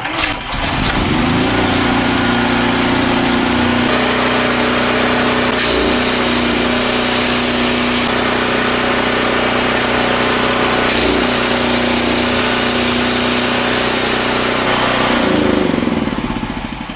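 Generac GP6500 portable generator's single-cylinder engine catching right away on a choked start and rising to speed. It runs steadily, now running properly after its carburetor has been cleaned, then is shut off and winds down near the end.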